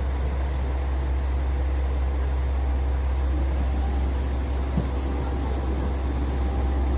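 Steady low vehicle rumble that holds even throughout, with a single faint click about five seconds in.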